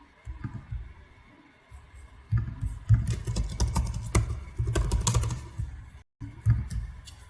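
Typing on a computer keyboard: a few scattered keystrokes, then a fast, dense run of key clicks and thumps about two seconds in that lasts several seconds before thinning out near the end.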